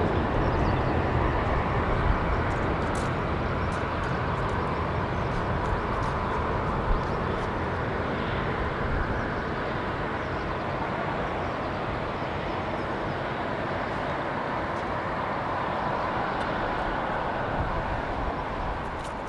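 Jet engines of a four-engine Boeing 747-400 freighter roaring as it climbs away after takeoff. The roar is steady and slowly fades, dropping away near the end.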